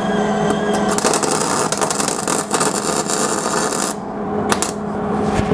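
Hand-tool work on a steel compressor frame: metallic clinking and a dense run of rapid clicks from about a second in until about four seconds in, then a few single clicks.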